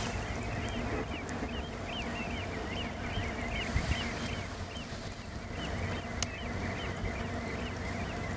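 Shorebirds calling: many short, looping whistled calls a few times a second, over a steady low rumble.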